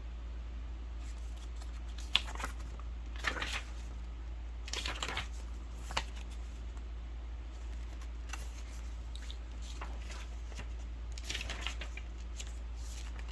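Pages of a paper instruction booklet being handled and turned: a few short, scattered rustles and crinkles over a steady low hum.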